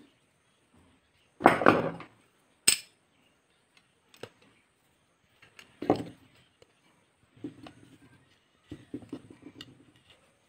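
Metal clinks and knocks of hand tools and a metal planer part being handled on a wooden workbench. The loudest is a clatter about a second and a half in, followed by a sharp clink a second later. Another knock comes near six seconds, then lighter rattling near the end.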